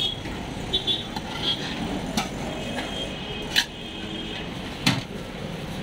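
Three sharp clinks of steel serving ware as rice is scooped from a large steel pot and served onto plates, over steady street traffic noise.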